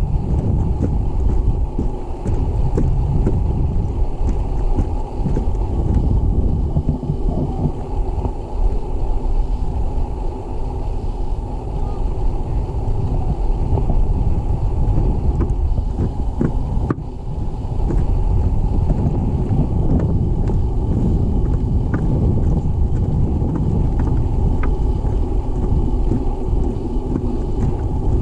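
Wind buffeting the camera microphone, a loud, steady low rumble.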